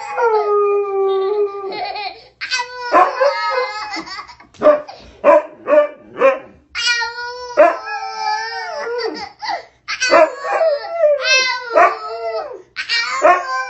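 Dog howling in several long drawn-out calls, with a run of short barks and yips about halfway through.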